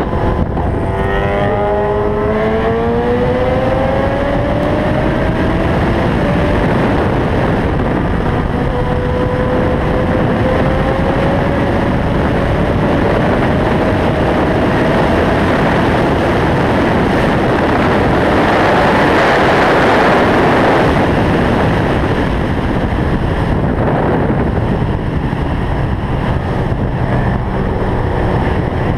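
Inline-four sport-bike engine pulling hard under acceleration, its pitch climbing through the gears and then rising slowly at high speed. Heavy wind rush on the microphone builds to its loudest about two-thirds of the way through and largely covers the engine.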